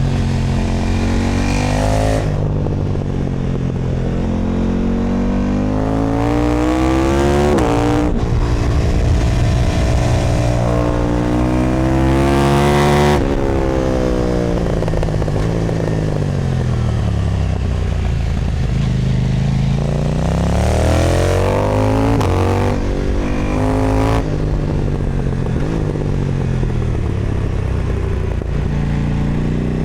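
KTM Duke 990 twin-cylinder engine through an Austin Racing aftermarket exhaust, ridden hard. It pulls through the gears with rising pitch, with quick breaks at the shifts, then winds down on the overrun into corners and picks up again. This repeats several times.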